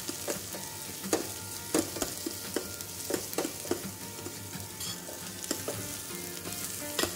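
Sliced onion and garlic sizzling in hot oil as they are sautéed in a stainless steel pot. A metal ladle stirs them, clinking and scraping against the pot at irregular moments.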